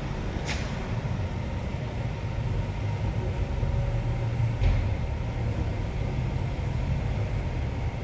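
Schindler Smart machine-room-less traction lift travelling up its shaft, heard through the closed landing doors: a steady low hum and rumble. There is a short click about half a second in and another near five seconds in.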